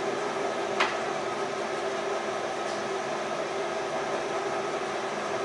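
LeBlond 13" x 32" engine lathe running under power with the lead screw and half nuts engaged for threading, a steady mechanical hum with a few held tones. One sharp click comes about a second in.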